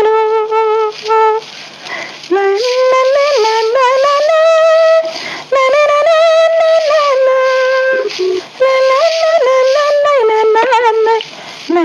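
A woman singing solo and unaccompanied: a slow melody of long held notes joined by ornamented turns and glides, with short breaths between phrases.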